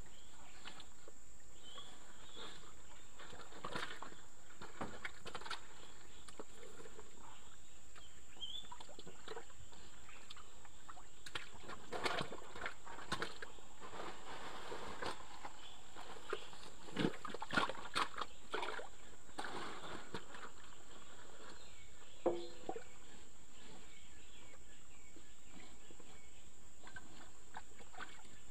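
Muddy ditch water sloshing and splashing, with scattered clicks and knocks clustered in the middle and a steady high-pitched tone throughout.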